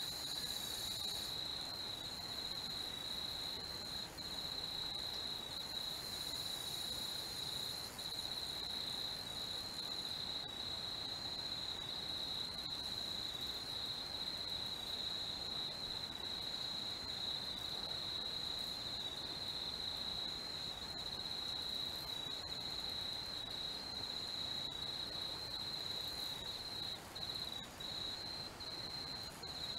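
Crickets chirping in a continuous high-pitched chorus, with a few faint clicks.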